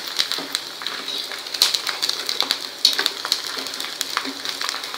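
Sago (tapioca) pearls deep-frying in hot oil, sizzling and crackling with many small pops as they puff up.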